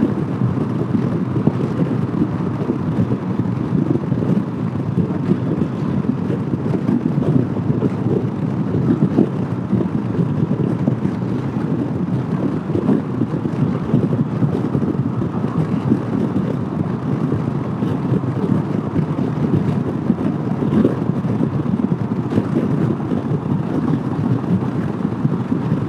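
Steady wind noise on the microphone mixed with road noise from a 2015 Honda PCX150 scooter cruising at highway speed. The sound is an even, unbroken rush with no distinct engine note standing out.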